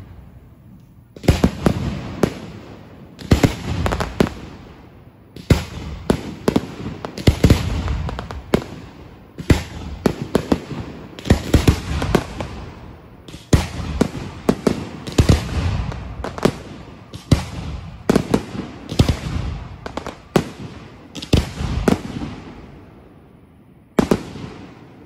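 Consumer fireworks going off: many sharp bangs in quick clusters, one after another, each with an echoing tail, the last bang coming near the end and then dying away.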